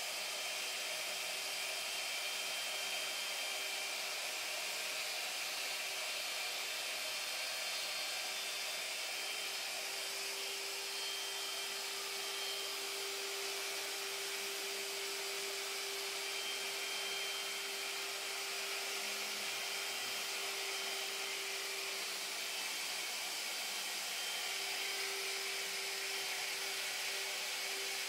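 Router spindle of a homemade CNC machine running steadily, its bit cutting into a wooden board: an even hiss with a steady mid-pitched hum under it.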